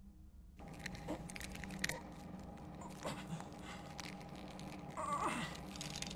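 Film sound effects of a man in a ceiling vent holding the cable that suspends another: a low hum with many small creaks and clicks of the cable and gear, starting about half a second in. About five seconds in there is a short wavering whine that slides down in pitch.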